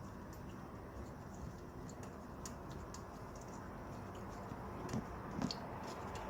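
Scattered light clicks and taps of parts being handled, two slightly louder knocks near the end, over a steady low background hum.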